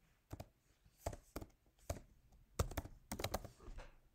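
Typing on a computer keyboard: about ten irregular, uneven keystrokes as a word is typed into a form field.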